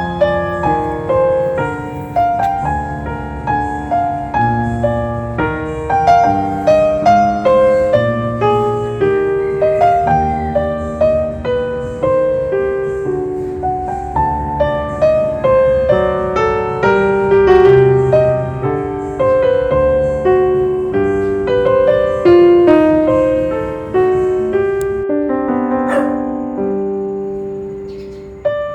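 Piano music: a continuous flow of melody notes over chords, each note struck and fading.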